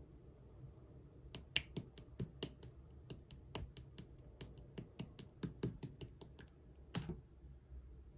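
Clear green slime being squeezed and poked by hand, giving a quick run of sharp clicking pops, about four or five a second, that starts about a second in and stops near the end.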